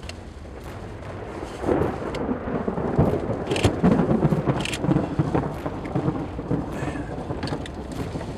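Thunder rumbling from a tornadic supercell, swelling up less than two seconds in and rolling on, with scattered sharp ticks over it.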